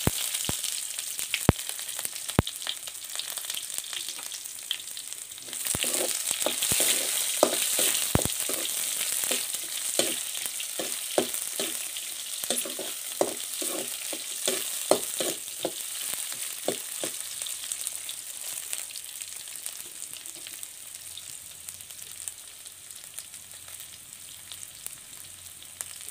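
Chopped onion sizzling as it fries in hot oil in an iron kadhai, with a spoon clicking and scraping against the pan as it is stirred. The sizzle swells about five seconds in, the stirring clicks come thick for the next ten seconds or so, then the sizzle eases off steadily.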